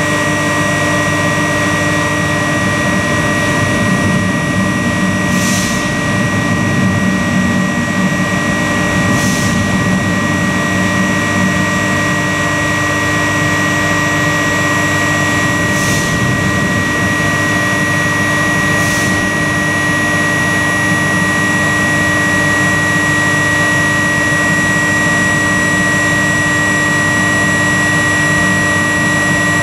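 Two 800 kVA static power converters running, giving a steady electrical hum made of several constant tones, the strongest a high whine, over a low rumble.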